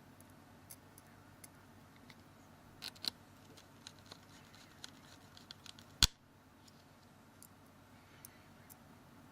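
Small Phillips screwdriver and tiny screws clicking and ticking against a Galaxy S2's plastic case as the case screws are refitted, with one sharp, louder click about six seconds in.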